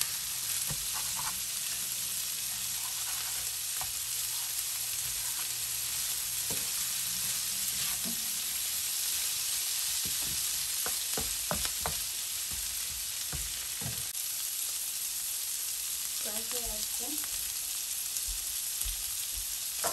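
Shrimp, onions and chillies sizzling steadily in oil in a nonstick frying pan, with a spatula scraping and knocking against the pan as they are stirred, most often in the middle stretch.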